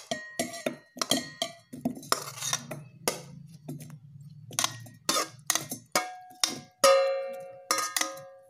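A run of clinks and knocks of utensil and boiled guava pieces against a stainless-steel mixer-grinder jar as it is filled. The later strikes ring out in clear metallic tones, the loudest about seven seconds in.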